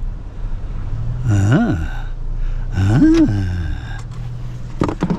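Vehicle engine idling with a steady low hum. Twice a man makes a wordless rising-and-falling "hmm" sound, and there are a few sharp clicks near the end.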